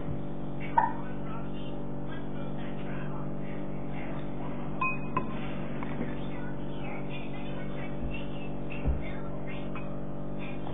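A steady hum with a few light knocks and taps, the clearest shortly after the start and about nine seconds in.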